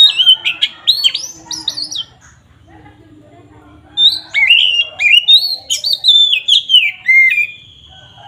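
Oriental magpie-robin (kacer) singing loud, rapid phrases of sweeping whistled notes, in two bursts separated by a pause of about two seconds, the second ending in one long held whistle.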